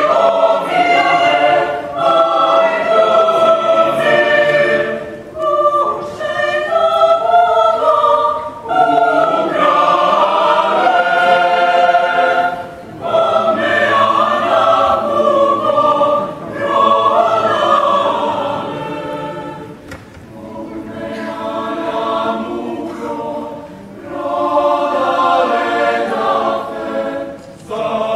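Mixed choir of women's and men's voices singing in harmony, in phrases a few seconds long. About two-thirds of the way through it sings more softly, then swells again.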